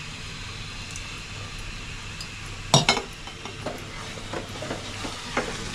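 A spoon stirring curd into methi gravy in a steel kadhai, over a steady low sizzle. About three seconds in the spoon strikes the pan with a sharp double clink, followed by a few lighter taps and scrapes.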